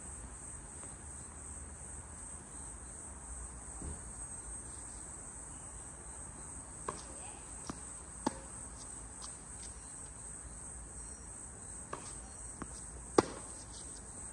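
A steady high-pitched insect chorus, with a string of sharp tennis-ball hits starting about halfway through, the loudest near the end.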